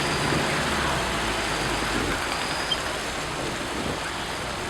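Vehicle driving along a flooded road: a steady low engine hum under a broad rushing noise of rain and water, the hum dropping away about two seconds in.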